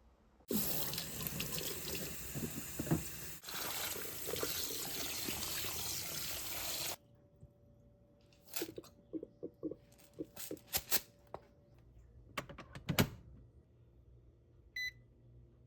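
Water running hard from a tap into a sink for about six seconds, then shut off abruptly. Scattered clicks and knocks follow, and a short electronic beep sounds near the end.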